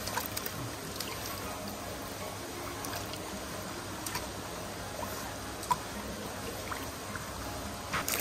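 Water trickling and pouring steadily, with a few faint small splashes or drips.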